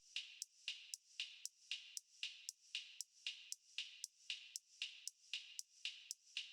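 Faint, even hi-hat-like ticks, about four a second, from an electronic dance track stripped down to its high percussion in a break.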